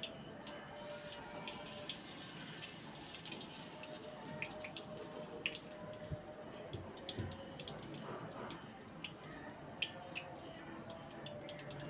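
Spiral-cut, cornflour-coated potato sticks deep-frying in hot oil in a kadai: a steady sizzle full of small crackles and pops.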